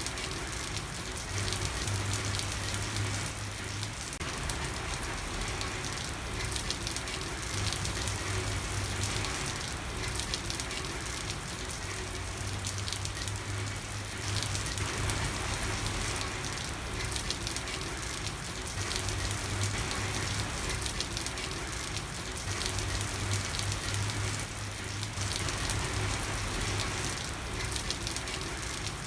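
Steady rain falling, a dense even hiss of many small drops, with a low hum that comes and goes every few seconds.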